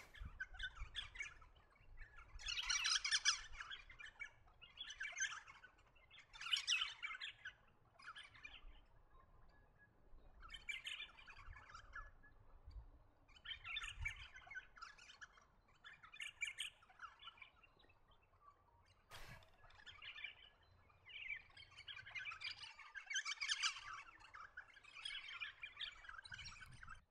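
Eastern rosellas calling: repeated bursts of chattering calls, each a second or two long, with short gaps between them. There is a single sharp click about 19 seconds in.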